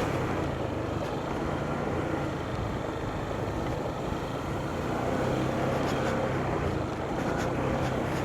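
Vehicle engine running steadily while riding along a road, under a steady rush of road and wind noise.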